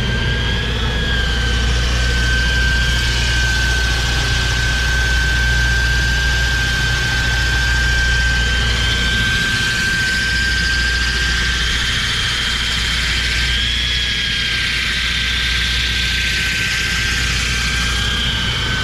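Handheld power tire grinder working the tread of a dirt late-model racing tire on a tire-prep stand. A steady high-pitched motor whine sits over a grainy hiss and a low hum, with only slight wavers in pitch.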